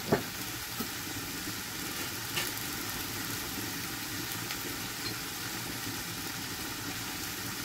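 Minced beef and mixed vegetables sizzling steadily in a frying pan, an even hiss with a faint click about two and a half seconds in.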